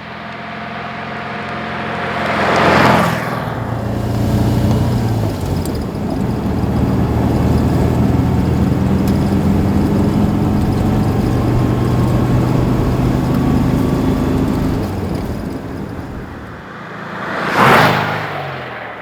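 1954 Porsche 356 pre-A's air-cooled flat-four engine running under way, its steady note shifting pitch a few times with throttle. Two loud whooshes break in, about three seconds in and near the end.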